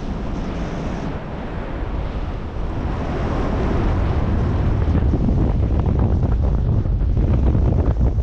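Wind buffeting the camera microphone in paraglider flight, a dense low rumble. It grows louder over the second half as the glider banks into a turn and picks up speed.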